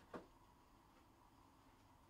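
Near silence: room tone with a faint steady hum, broken once just after the start by a brief short sound.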